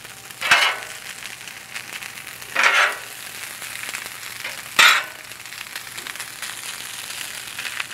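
Shredded hash brown potatoes sizzling in butter on a hot Blackstone steel griddle, with metal spatulas scraping across the griddle plate three times, about two seconds apart.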